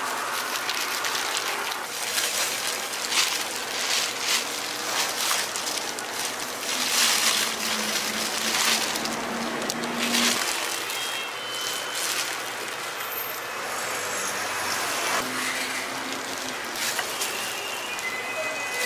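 Hotteok frying in oil on a flat griddle: a steady sizzle that swells louder now and then.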